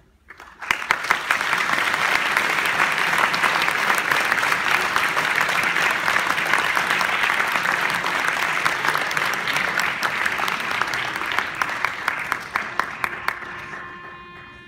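Audience applause breaks out suddenly and holds steady, then thins to scattered single claps and dies away near the end. A soft held note from the concert band comes in as it fades.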